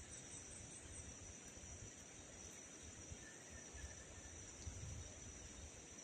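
Faint, steady high-pitched insect chorus with an uneven low rumble underneath.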